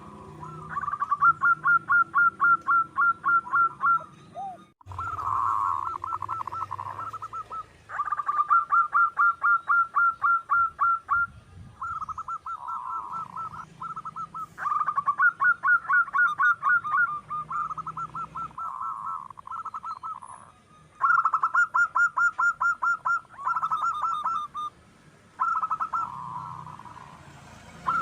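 Zebra dove (perkutut) singing: phrase after phrase of rapid, staccato cooing notes, each phrase lasting a few seconds, with short pauses between them.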